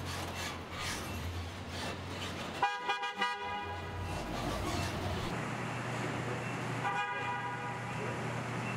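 A vehicle horn gives a couple of quick toots about three seconds in and one more short toot near seven seconds. Underneath is the low, steady running of a UPS package truck's engine.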